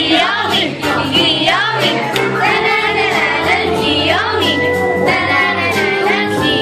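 Dance music playing over a sound system: a song with a sung lead vocal over steady low notes.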